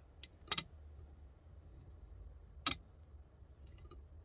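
Sharp metallic clicks as a small metal piece snaps onto the back magnet of a woofer speaker driver: a faint one, then a clear one about half a second in, and another near the middle.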